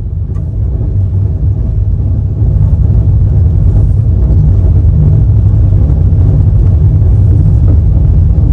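Steady low rumble of an express train in motion, the sound of a passenger coach running on the track, growing a little louder about two and a half seconds in.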